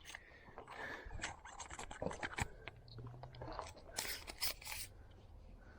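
Footsteps crunching over rough, overgrown ground, with irregular scrapes and crackles.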